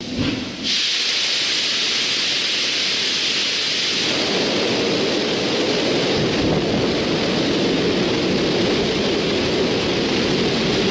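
Soyuz-2.1b rocket's engines igniting and firing on the pad: a loud, steady rushing roar that starts suddenly and grows deeper about four seconds in as thrust builds.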